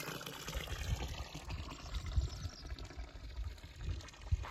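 Water from a spring's pipe spout pouring into a stone trough, a steady splashing hiss that fades after the first second or so, under low irregular rumbling.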